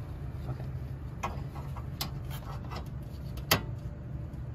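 Ratchet wrench clicking in short, uneven strokes as a 10 mm bolt on an AC line is worked loose, with one sharper click near the end.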